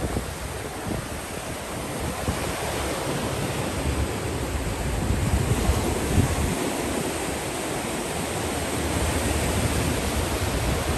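Sea surf washing on the shore, a steady rushing noise, with wind buffeting the microphone in low gusts.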